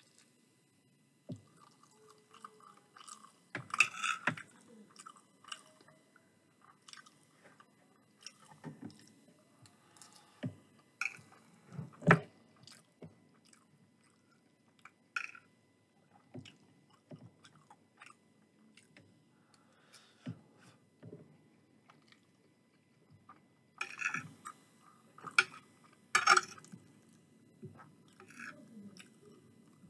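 Close-up chewing and mouth sounds of a person eating chicken curry and rice: wet, open-mouthed chewing with a steady scatter of short clicks, and louder clusters about 4, 12 and 26 seconds in.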